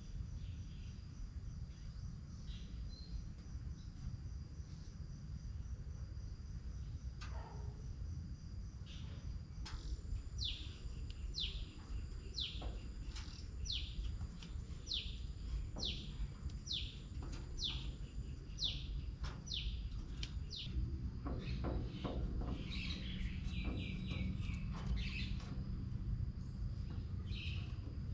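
Garden ambience: insects droning steadily on a high pitch over a low rumble, while a bird repeats a quick descending chirp about a dozen times, roughly two a second. Scattered clicks and knocks come in the last several seconds.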